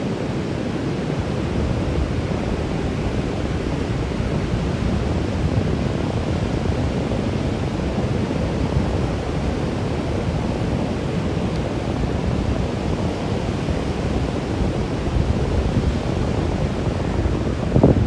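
Wind buffeting the microphone over the steady wash of sea surf.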